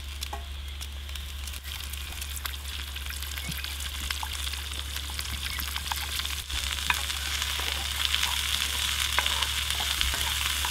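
Asparagus pieces, garlic and onion sizzling in a hot frying pan over a wood fire, with scattered small ticks and pops. The sizzle slowly grows louder as more cut asparagus goes in, over a steady low hum.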